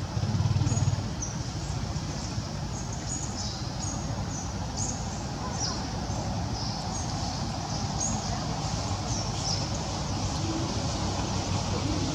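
Small birds chirping repeatedly in short, high notes, several a second, over a steady low rumble.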